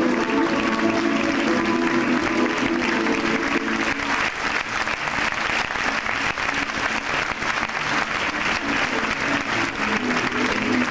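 Audience applauding over background music. The music drops back about four seconds in, leaving mostly the clapping, and returns near the end.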